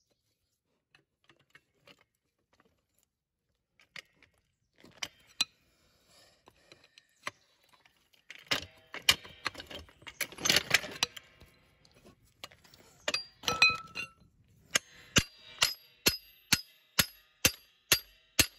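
Metal clicking and clanking from a hydraulic floor jack as its steel handle is worked in the socket: scattered clinks, a clattering rattle about halfway through, then a steady run of sharp clicks about two a second near the end.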